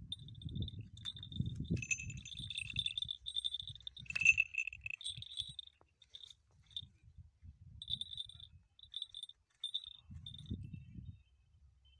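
Small falconry bell on a preening goshawk ringing in short, repeated jingles as the bird moves. Wind gusts on the microphone in between.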